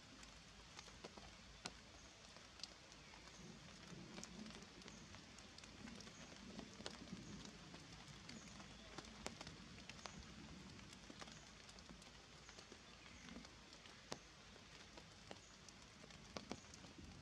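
Faint wet-forest ambience just after rain: scattered water drips ticking over a steady low hiss, with a faint high chirp repeating in the background.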